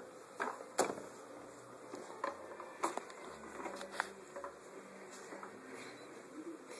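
A plastic push-walker toy clicking and rattling faintly as it rolls over carpet, with a few sharper knocks scattered through, the loudest about a second in.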